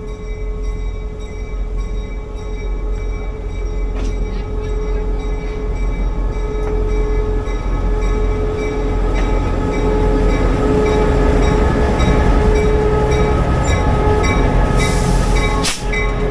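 Reading & Northern diesel locomotive running as it passes close alongside on the next track, its engine rumble and a steady whine growing louder as it nears. A short burst of hiss comes near the end.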